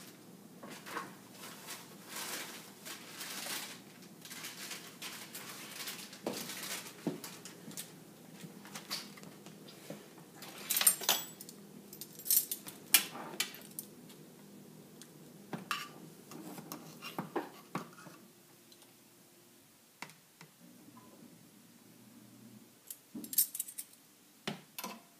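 A spoon clinking and scraping against mixing bowls, with irregular knocks of kitchenware, as the dry cake mix and baking powder are measured and stirred. The clinks are busiest about halfway through.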